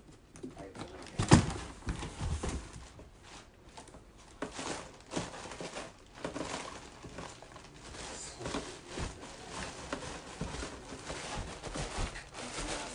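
A cat clambering into a cardboard box: one loud thump a little over a second in, then irregular scraping, rustling and knocking of cardboard as it moves about inside.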